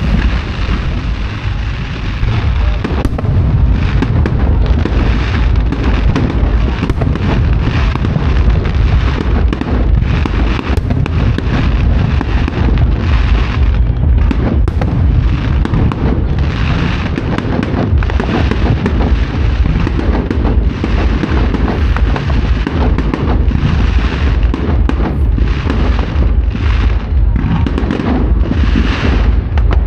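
Aerial fireworks shells bursting in quick succession, booming one after another without a break.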